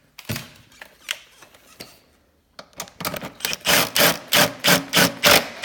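Power tool 'gun' tightening an exhaust mounting bolt, run in short repeated bursts, about three a second, in the second half, after a few clicks of handling.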